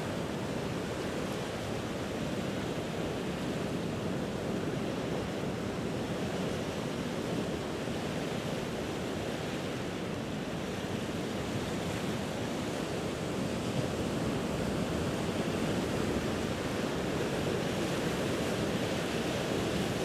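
Ocean surf sound bed: a steady, even wash of waves, with no distinct breaks or crashes standing out.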